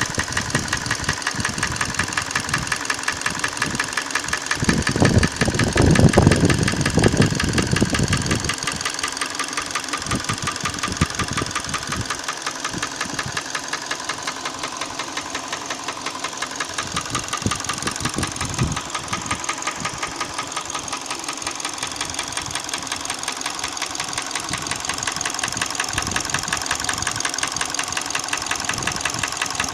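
Hyundai ix35 petrol engine idling with a rapid, even knock, an unexplained engine knock the owner is asking about. About five seconds in, a louder, rougher sound lasts for about three seconds.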